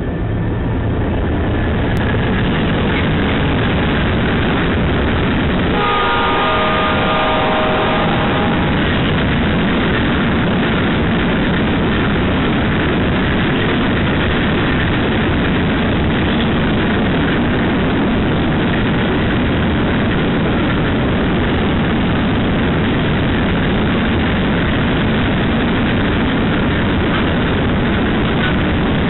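A grain train hauled by Pacific National's G529 and XR551 diesel-electric locomotives passes close by, loud and steady, with engine and rolling noise building in the first second. About six seconds in, the locomotive horn sounds a multi-note chord for roughly two and a half seconds. After that a steady rumble of wagons rolling past runs on.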